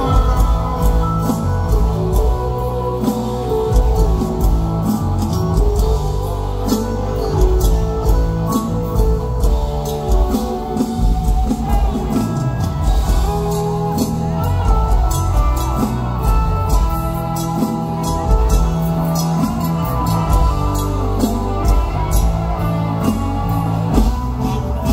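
Live mor lam band music with a steady drum beat and heavy bass, and a girl's voice singing into a microphone at times.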